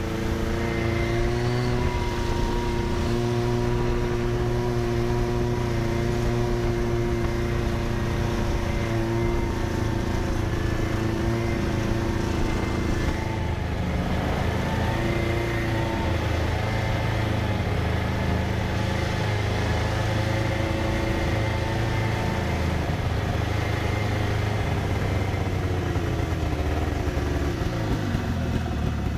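Snowmobile engine running at a steady speed while riding, its pitch wavering slightly and dropping briefly near the end as it eases off.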